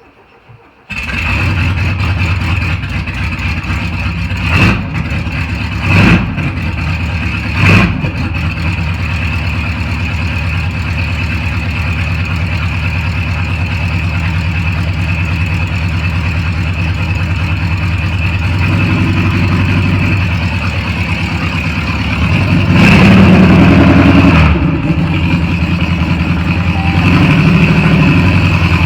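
VW Beetle air-cooled flat-four engine starting about a second in, then running steadily, with three short loud blips a few seconds in and a louder stretch near the end.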